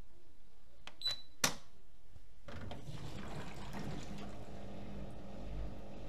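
Privileg Dynamic 6610 CN washing machine being started: a short high beep from the control panel and a sharp click, then a low hum as the inlet valve opens and water runs in to fill the machine.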